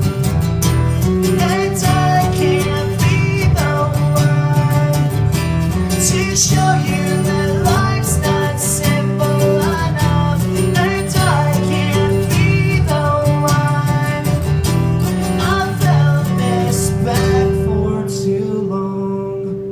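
Acoustic guitars strumming the song's chords in a live performance. About eighteen seconds in, the low strummed part drops out and a single held note rings on.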